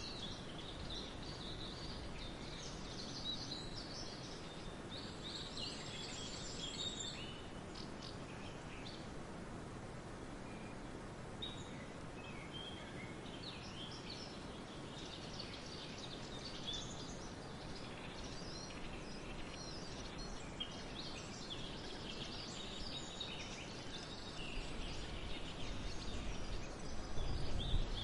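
Wind rushing steadily through a barley field, with swallows chirping in scattered bursts. Near the end the wind picks up and rumbles on the microphone.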